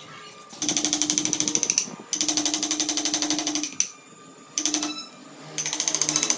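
Rapid, even tapping of a wood-carving chisel cutting into the wood, about ten strikes a second. It comes in bursts of roughly one to one and a half seconds with short pauses between.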